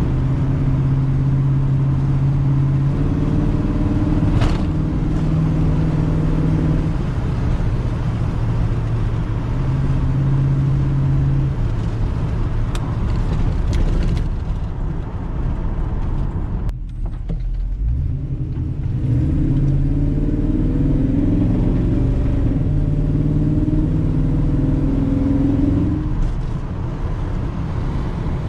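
Car engine running, newly built and being broken in, holding steady speeds that step up and down. Its sound drops briefly about two-thirds of the way through, then picks up again.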